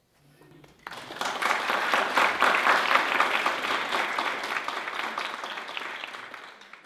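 Audience applauding, starting about a second in, loudest soon after, then slowly dying away.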